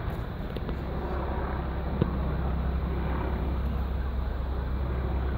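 Steady low engine rumble under general outdoor noise, with one short sharp click about two seconds in.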